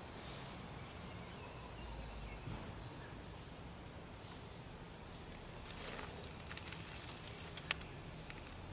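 Dry fallen leaves crackling and rustling as a cat shifts about in them. The crackles come in a cluster from about six seconds in to nearly eight, over a faint steady outdoor background.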